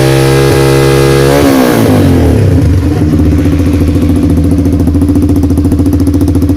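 Yamaha Fazer 150's single-cylinder engine through an aftermarket Roncar aluminium exhaust, loud, held at high revs, then dropping back about a second and a half in and settling into a lumpy, pulsing idle.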